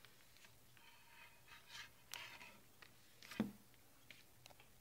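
Faint rustling of a clear plastic disc sleeve as the Mac OS X Snow Leopard install DVD is handled, with small ticks and one light tap about three and a half seconds in, as of the disc set down on a wooden desk.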